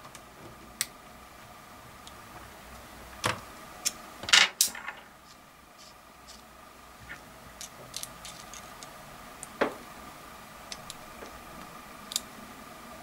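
Metal hand tools being handled: locking pliers and a socket with hex bit clicking and clinking against each other and the table as the pliers are set and clamped onto the socket. The clicks are scattered, with a cluster of louder knocks around three to five seconds in, over a faint steady hum.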